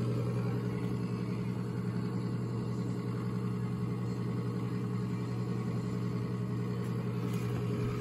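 Coleman mobile home furnace's combustion-air inducer motor running with a steady hum. The pressure switch fails to close while it runs, which the technician takes for a bad pressure switch.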